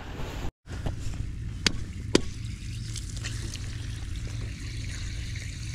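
Irrigation water trickling and spurting from holes punched in lay-flat polypipe, with two sharp clicks about half a second apart, roughly two seconds in.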